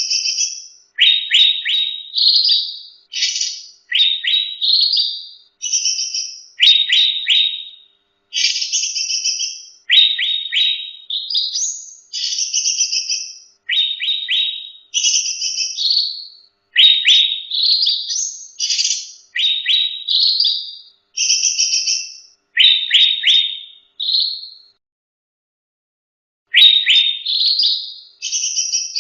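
Cucak rante songbird singing: short phrases repeated about every one and a half to two seconds, each a quick stutter of sharp notes followed by a higher whistle, with a brief pause near the end.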